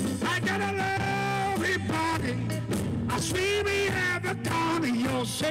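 A man singing long, held notes into a microphone over a live rock band playing through a PA.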